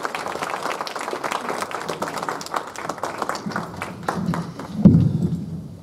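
Audience applauding, a dense patter of claps that thins out after about three seconds. Near the end a single dull thump, the loudest sound, as the stage microphone is handled.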